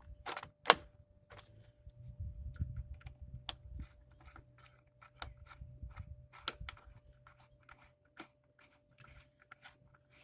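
Plastic air filter cover on a lawn mower engine being worked and pressed into place by hand: a run of irregular plastic clicks and taps with handling rumble, the loudest a sharp click near the start. The cover fits tight because a thick new pre-filter presses against it.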